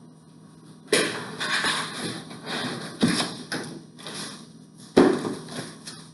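Three sharp knocks about two seconds apart, with rustling and scraping between them: the e-bike's cardboard shipping box and packing being handled and opened.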